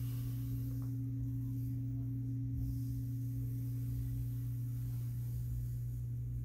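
Steady low electrical hum with a fainter, higher tone above it, unchanging throughout.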